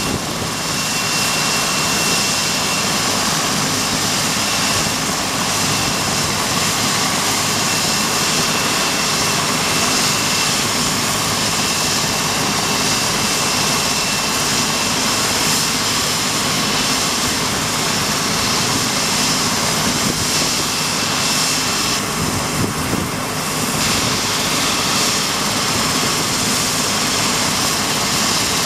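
BK 117 rescue helicopter running on the ground after landing: a steady roar from its twin turbine engines and turning main rotor, with a thin high turbine whine over it.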